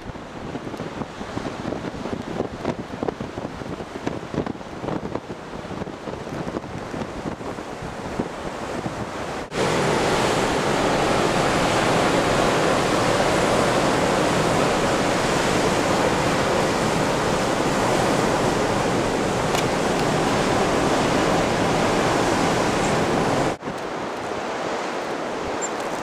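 Blizzard wind gusting and buffeting the microphone. About a third of the way in the sound cuts to a louder, steady rush of wind, and near the end it cuts again to a quieter steady wind.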